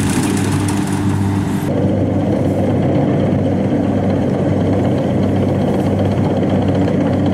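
Rice combine harvester's engine running steadily under load with a constant low hum; a hissing high end drops away abruptly about one and a half seconds in while the engine carries on.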